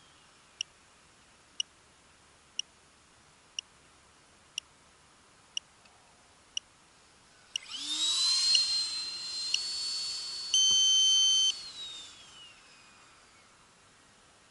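Short ticks about once a second, then an electric ducted-fan RC jet makes a low pass. Its fan whine rises sharply as it comes in, holds high and loud, then falls away as it goes off. Partway through the pass a loud steady beep sounds for about a second.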